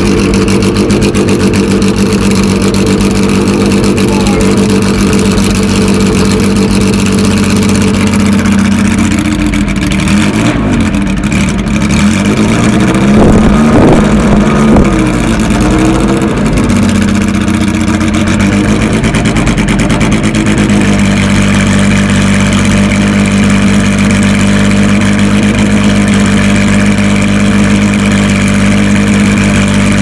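Lancia Stratos HF's Ferrari Dino 2.4-litre V6 idling, heard close to its twin tailpipes. From about nine seconds in it is revved in a run of throttle blips, pitch rising and falling, loudest around fourteen seconds, then it settles back to a steady idle a little after twenty seconds.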